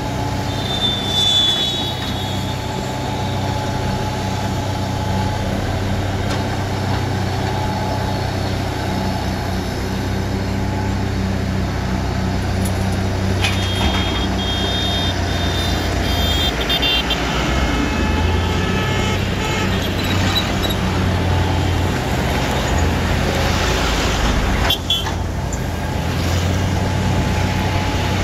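JCB JS140 tracked excavator's diesel engine running steadily under load as it digs, with the hydraulics working the boom and bucket. Brief high-pitched squeals come a second in and again around the middle.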